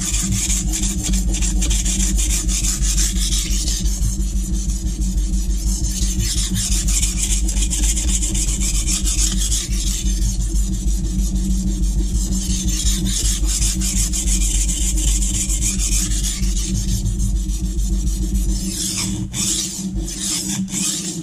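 Stainless chef's knife blade stroked rapidly back and forth by hand on the fine side of a Norton Crystolon silicon-carbide bench stone, polishing out the coarse-side scratch marks and raising a burr. The steady gritty scraping goes on almost without a break.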